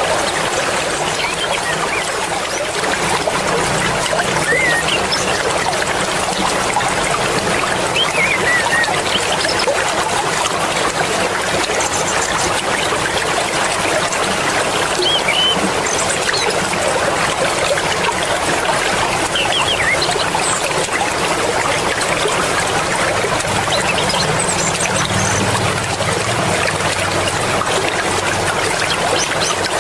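Swift mountain river water rushing and babbling over stones, a steady, even flow, with a few faint short high chirps over it.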